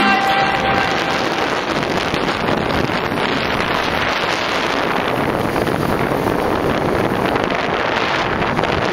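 Wind rushing over the microphone of a camera held by a rider on a moving motorcycle, with road and motorcycle noise underneath: a steady, even rushing noise.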